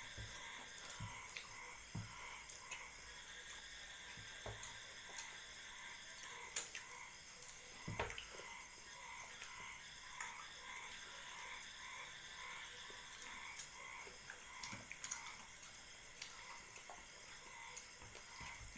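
Quiet eating by hand from steel plates: soft chewing and a few sharp clicks, the loudest about six and eight seconds in. Under them runs a steady background chirping that pulses about twice a second.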